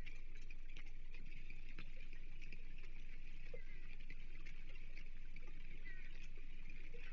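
Steady outdoor hiss and low hum from the nest camera's microphone over open water, with scattered light ticks and a brief faint high chirp about six seconds in.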